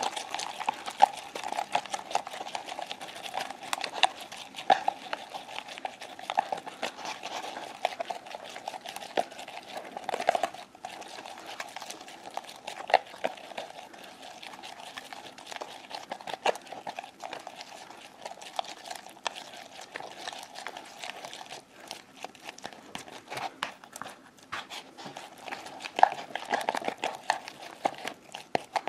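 Stirring stick knocking and scraping around a clear bowl as clear glue and borax solution are stirred nonstop into slime: a continuous run of irregular clicks and scrapes.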